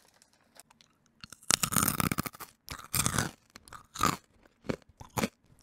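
A peanut being bitten and chewed right up against a microphone, ASMR-style. There is one loud crunch about a second and a half in, then several shorter chewing crunches.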